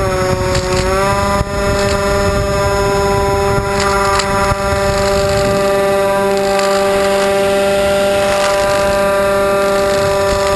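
Twin brushless outboard motors (D2826-6, 2200kv on 3S) spinning 6x4 propellers, heard from the plane's onboard camera as a steady multi-toned whine. The pitch dips briefly about a second in, as the throttle is eased, then holds level, over a rough rush of wind on the microphone.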